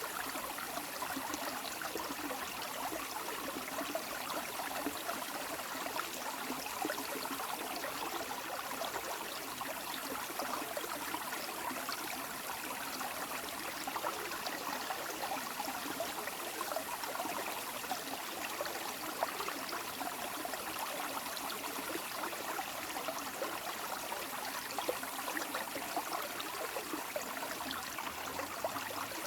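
Running water flowing and trickling steadily, a continuous splashing rush with no change in level.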